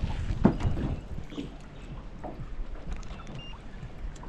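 Irregular knocks, bumps and small splashes around a small fishing boat while a trout is being played, over a low rumble.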